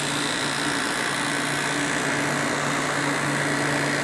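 Hunter 5,400 BTU window air conditioner (a rebadged Fedders) running, heard from its back: a steady compressor hum under a constant rush of condenser-fan air, relatively quiet.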